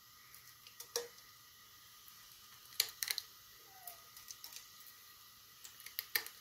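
Scattered light clicks and ticks of green cardamom pods dropped into a nonstick pot coated with melted ghee, with a few sharper clicks about a second in, near three seconds and near the end.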